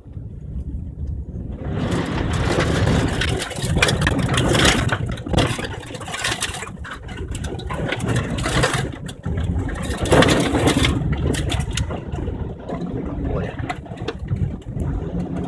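Heard from inside the cabin, a 4x4 car's engine runs with a steady low hum while the car drives through a muddy flood stream. From about two seconds in, water and mud splash loudly against the body and windscreen, surging several times.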